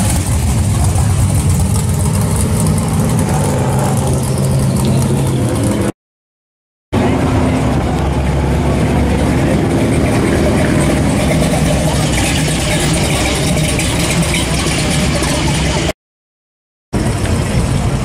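Engines of classic cars running as they drive slowly past one after another: a red 1968 Chevelle, then a lowered purple 1950s Ford pickup. The sound drops out completely for about a second twice, about six and sixteen seconds in.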